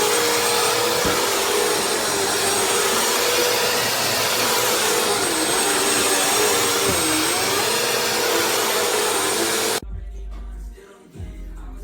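Bissell vacuum cleaner running steadily with a hissing whine that dips in pitch twice, briefly, about halfway through. The whine cuts off suddenly near the end, giving way to quieter background music with a low bass.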